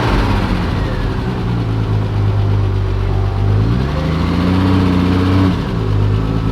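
Triumph TR6 straight-six engine running on the move, its revs rising about four seconds in, held briefly, then dropping back.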